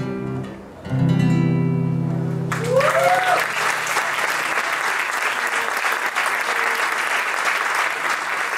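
Classical guitar's closing chord, strummed about a second in and left ringing; about two and a half seconds in, audience applause breaks out suddenly, with one rising-and-falling cheer, and goes on steadily.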